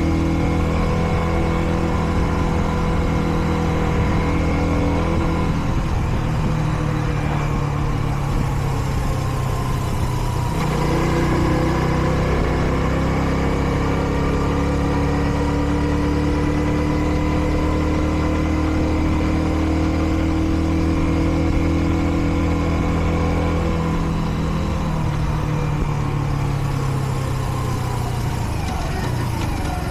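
Kreidler Dice CR 125 motorcycle's single-cylinder four-stroke engine running under way at moderate revs, as it should while the bike is still being run in. About a third of the way through the engine note breaks and drops, then climbs slowly, and it falls away over the last few seconds.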